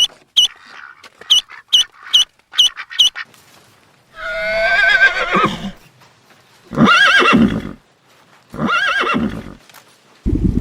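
Horse whinnying: a long wavering neigh, then two shorter calls, after a quick run of short sharp clicks. A steady rushing noise starts right at the end.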